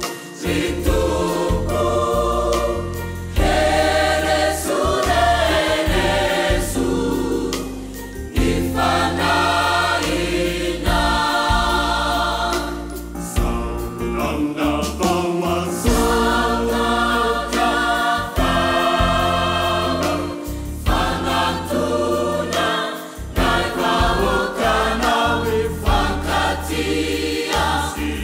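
Choir singing a Malagasy Christian song over low sustained bass notes.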